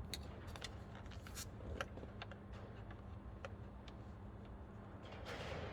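Scattered light clicks and ticks of a screwdriver and small screws being started into their threads, with a short rustle of handling near the end, over a steady low hum.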